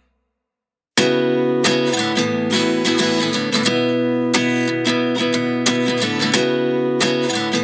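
Background music: silence for about a second, then strummed acoustic guitar starts abruptly and goes on in steady, repeated chord strums.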